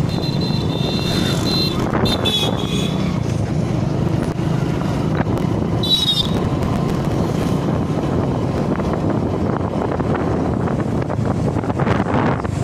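A small motorcycle's engine running steadily while riding, with wind noise on the microphone. Brief high-pitched ringing tones come in about a second in and again about six seconds in.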